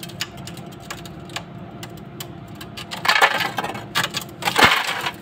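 Ice cubes clinking and rattling against a glass: scattered light clicks, then two louder clattering bursts in the second half, the second ending in a thump.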